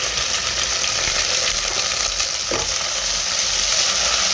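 Wet ginger paste sizzling hard in hot oil with deep-fried onions in a nonstick pot, stirred with a spatula; a steady, loud sizzle.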